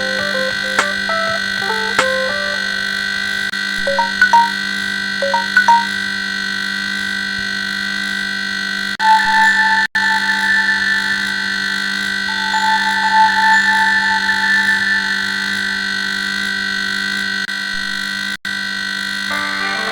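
Samsung Galaxy S7 stock ringtone music: synthesized electronic tones over a steady held drone, with quick runs of short notes in the first few seconds and longer held notes later. The sound cuts out for an instant at about ten seconds and again near the end, and a new run of notes begins just before the end.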